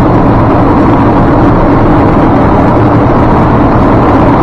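Diesel dump truck running steadily at road speed, heard from inside the cab: a loud, even engine and road drone with a faint steady hum.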